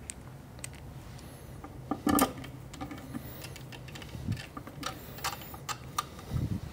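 A screwdriver driving screws into the bottom plate of a DF83 coffee grinder: scattered small clicks and scrapes of the tool in the screw heads and the plate, with a louder knock about two seconds in.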